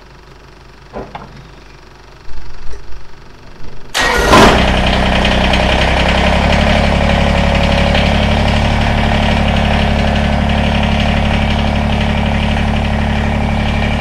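Kubota BX23S tractor's three-cylinder diesel engine being cranked by the starter for a second or two, catching about four seconds in and then running steadily. This is the first start after both fuel filters were replaced and the fuel system was bled by leaving the key on.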